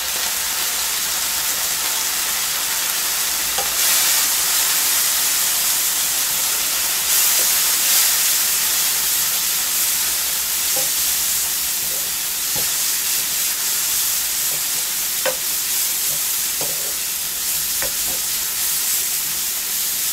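Caramelized onion slices sizzling hard in a frying pan with freshly added soy sauce, stirred with a wooden spatula that scrapes and taps the pan now and then. The sizzle swells about four and again about eight seconds in.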